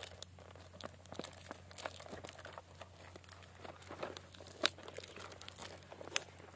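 Plastic parcel wrapping being crinkled and torn open by hand: soft scattered crackles, with two sharper snaps about four and a half and six seconds in.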